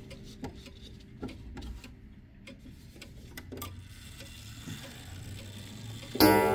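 Kienzle pendulum wall clock ticking, with the last ringing of an earlier gong stroke dying away at first. Near the end the hammer strikes the coiled wire gong once, loudly, and it rings on.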